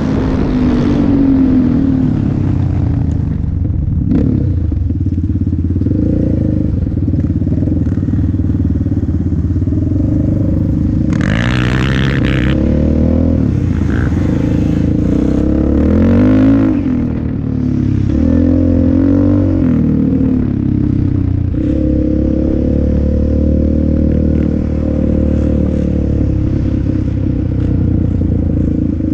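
Yamaha Raptor 700R ATV's single-cylinder four-stroke engine running hard under a rider, its pitch climbing and dropping again and again with the throttle. A brief rush of hissing noise comes about halfway through.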